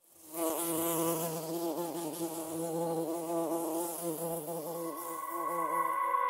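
Honeybee buzzing in flight, a low hum whose pitch wavers up and down.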